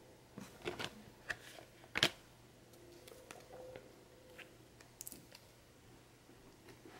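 Oracle cards being handled and set down on a table: faint scattered clicks and light rustles of card stock, with one sharper tap about two seconds in.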